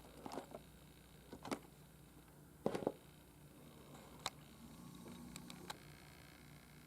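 Faint scattered clicks and light taps from handling a 1:400 scale die-cast model airliner as it is turned around, the loudest pair a little under three seconds in, over quiet room tone.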